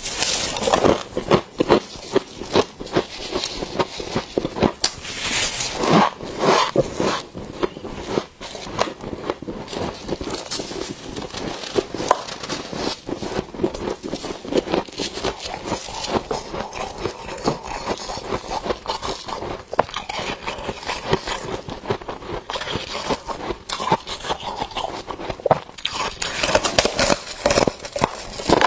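Close-up crunching as a block of packed freezer frost is bitten and chewed, a dense run of crisp crackles with louder crunches now and then.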